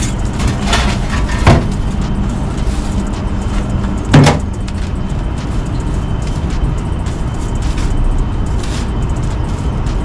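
Two sharp clanks of metal food trays being handled, one about a second and a half in and a louder one just after four seconds, over a steady low rumble.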